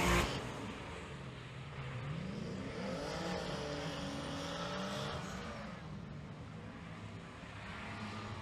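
Drift cars' engines revving as they slide through corners, heard from a distance. The engine note climbs and falls several times, peaking about three seconds in.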